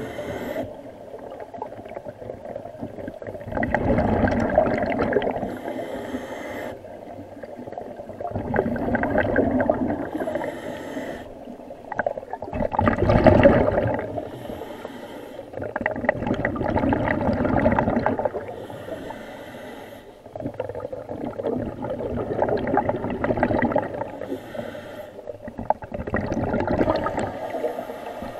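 Scuba diver breathing through a regulator underwater: a hiss on each inhale, then a gurgling rush of exhaust bubbles on each exhale. It repeats about once every four to five seconds.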